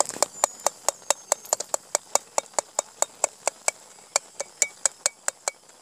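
Steel spatula knocking and scraping against the inside of a metal kadai in a quick, even rhythm of about four to five strikes a second, as crumbled goat blood is stirred continuously while it fries.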